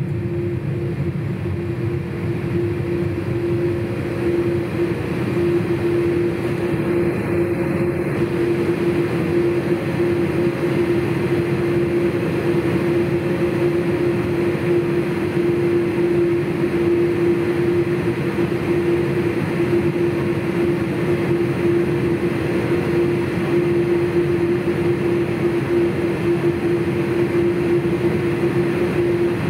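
Steady cabin noise inside a Boeing 787-8 on the ground with its engines at idle: a low rumble with a steady tone running through it, rising slightly after the first few seconds.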